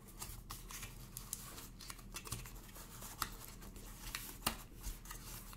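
Scattered light clicks and rustles of small packaging being handled and opened as the fitness band's USB charger is taken out of its box.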